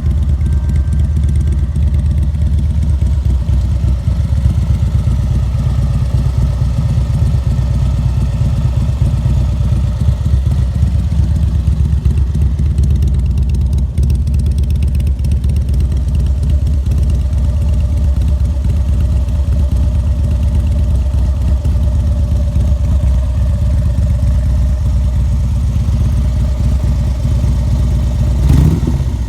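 2007 Harley-Davidson Street Glide FLHX's Twin Cam 96 V-twin idling steadily through RC Components 4.5-inch slip-on mufflers, their baffles packed with extra insulation to deepen the note. Near the end the throttle is blipped once, and the revs rise and fall back.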